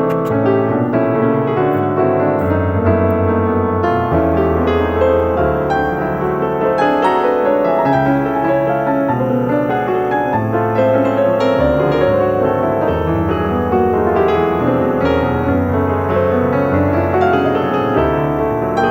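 Background music led by piano, with a sustained bass line under it.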